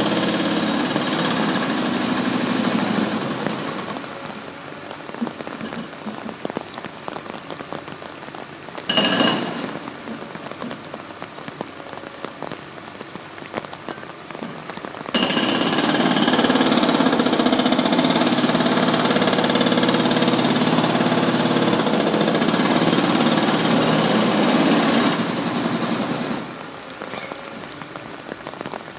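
Diesel engine of a long-reach demolition excavator working under load. It is loud at the start, drops back, then runs loud again from about halfway through until near the end. A short sharp noise comes about nine seconds in, and in the quieter stretches a fine patter like rain is heard.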